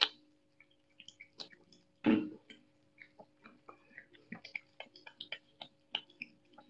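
Young otter chewing and crunching a raw catfish, with many short wet clicks and crackles from its teeth. A single loud thump comes about two seconds in. A faint steady hum runs underneath.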